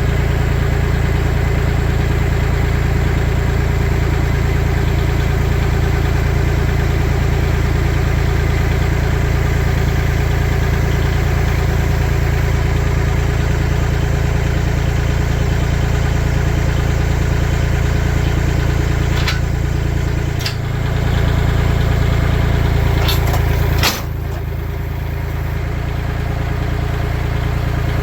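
Kubota L2501 tractor's three-cylinder diesel engine running steadily, with a few sharp knocks in the last third, the loudest one followed by a drop in level.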